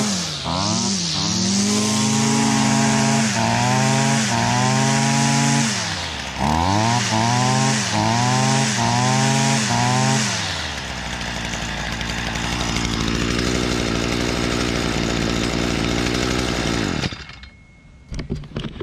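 Stihl FS 55 R string trimmer's two-stroke engine running at high revs, its pitch dipping and climbing again with each throttle blip, about once a second in the middle stretch. It running on its newly replaced carburetor and fuel line. It drops to a steady idle about ten seconds in and cuts off suddenly near the end.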